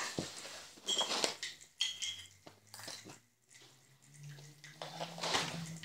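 A metal teaspoon clinking against a glass mug of water: a few light clinks in the first three seconds, two of them ringing briefly. A short hiss follows near the end.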